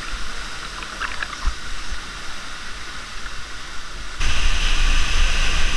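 Rushing river water heard close to the surface, a steady hiss with a few light splashes; a little after four seconds in the rush jumps suddenly louder.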